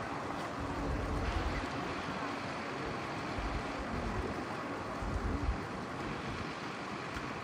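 Wind buffeting the microphone in uneven low gusts over a steady background noise.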